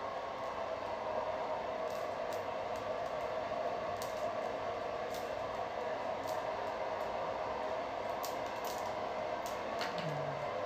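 Hair dryer blowing steadily, a constant whoosh.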